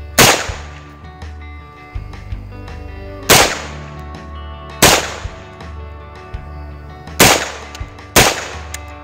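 Five single shots from an AR-15-pattern pistol chambered in 9mm, fired at uneven intervals about one to three seconds apart. Each is a sharp crack with a short ring-off.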